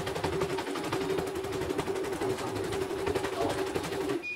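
CNY portable embroidery machine stitching: rapid, even needle strokes over a steady motor hum, stopping suddenly about four seconds in. The repairer puts the stop down to a snapped thread.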